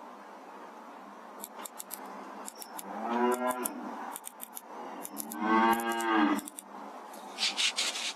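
Cow mooing twice, a short call about three seconds in and a longer one about five seconds in, each rising then falling in pitch. Light, scattered high clicks are heard between the calls.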